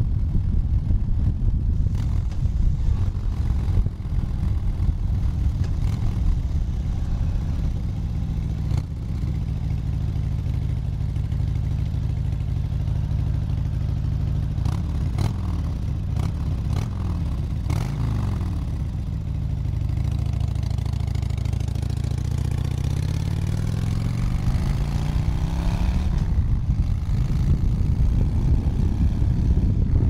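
Harley-Davidson V-twin motorcycle engine running under way on a ride. The engine note dips and recovers with throttle changes, then climbs in a long rise in pitch past the middle.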